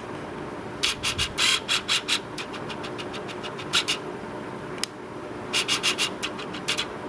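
Packaging being handled while a CPU retail box is unpacked: several quick runs of sharp crinkles and clicks, in a cluster about a second in, a couple near the middle and another cluster near the end.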